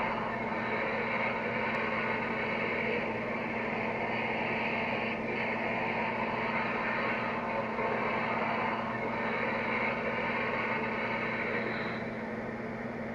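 QSI QS-3000 sound system in an O scale Reading G3 steam locomotive model playing steady steam-locomotive background sound: an even hiss over a low hum, easing slightly near the end.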